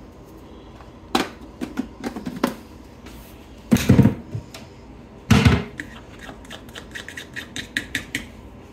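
Kitchen utensils clattering on the counter, with two heavy thumps about four and five and a half seconds in. Near the end comes a quick run of light taps as a spatula stirs cornbread batter in a glass measuring cup.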